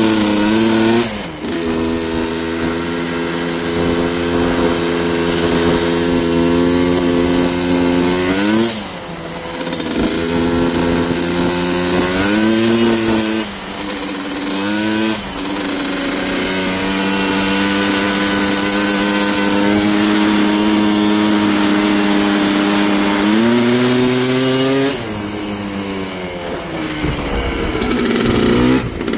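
Yamaha Blaster's single-cylinder two-stroke engine running at steady revs for long stretches. Its pitch rises and falls several times as the throttle changes.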